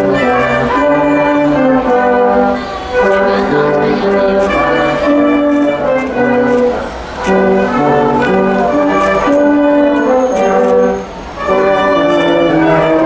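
Small brass marching band of trumpets, trombone and saxophone playing a tune, with short breaks between phrases about every four seconds.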